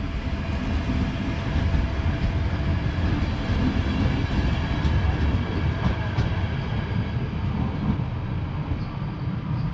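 A train running along the track: a steady low rumble of wheels on rails, with a faint steady whine above it.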